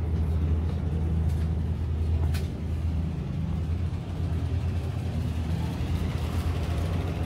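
Steady low drone of the Fast Cat M16 ferry's engines and machinery, heard inside the enclosed passenger cabin.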